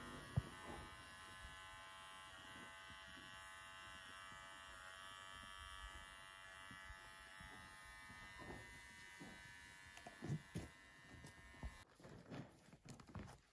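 Small electric hair clippers running with a steady buzz while trimming hair on a mule's ears and poll. The buzz stops about twelve seconds in, followed by a few soft knocks.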